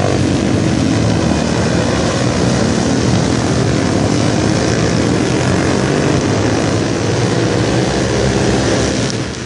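A pack of Kayo MiniGP minibikes racing past, several small high-revving engines overlapping and rising and falling in pitch as the riders shift and take the corner. The sound drops somewhat shortly before the end.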